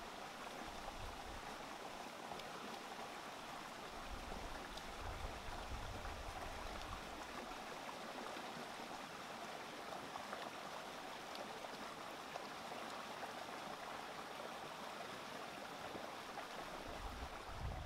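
Stream water rushing over and between rocks, a steady even rush with occasional low rumbles underneath.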